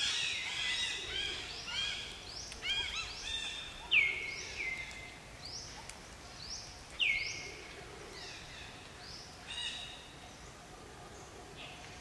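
Wild birds calling: many short, sharp, downward-sweeping whistled calls, overlapping at first, with two louder single calls about four and seven seconds in, then thinning out near the end.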